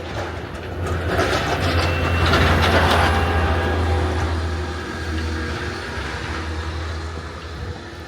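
Heavy snow-clearing truck passing close by: a low, steady engine drone with a rushing noise that swells to its loudest about two to three seconds in, then eases off.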